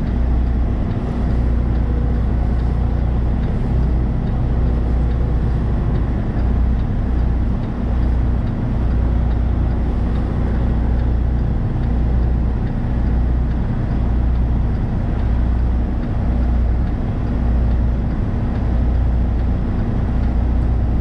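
Semi-truck diesel engine running steadily with a constant hum, under an uneven low rumble of gusting wind on the microphone.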